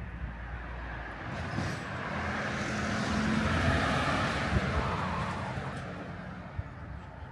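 A road vehicle passing by: its engine rumble and tyre hiss swell to a peak near the middle and fade away again.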